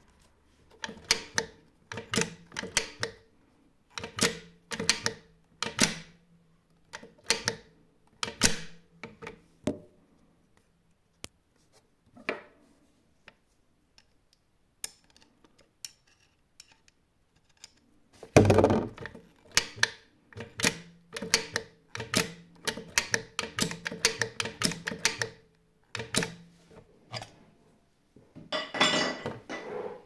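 Metal clicking and clacking of a Textima industrial sewing machine's presser-foot lifter linkage and latch being worked over and over, with a low steady hum under it. The clicks come in two runs with a pause of several seconds between them.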